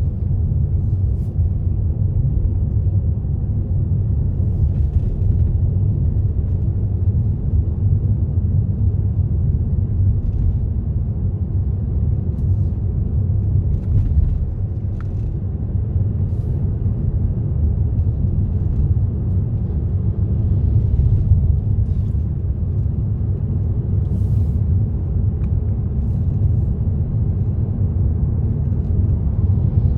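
Steady low rumble of a car driving along a road, tyre and engine noise without a break, with a few faint ticks scattered through.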